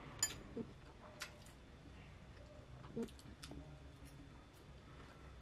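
Metal fork clicking against a glass salad bowl, with the quiet sounds of salad being chewed. There are several light clicks, and a sharper ringing clink at the end.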